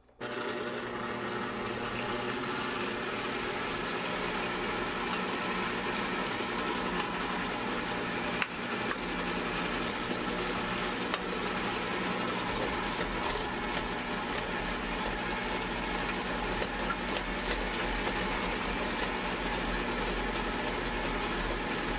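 Sunbeam MixMaster Heritage Series 350-watt stand mixer switching on and running steadily at medium speed, a motor hum and whir as its two beaters cream butter and sugar in the bowl.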